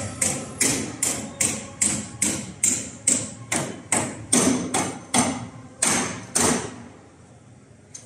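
Hand hammering on a building site: a regular run of sharp strikes, about two to three a second, slowing slightly and stopping near the end.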